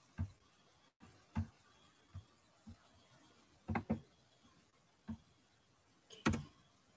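Faint, irregularly spaced clicks and soft knocks from a computer mouse and desk, about seven in all, the loudest a double knock near the end.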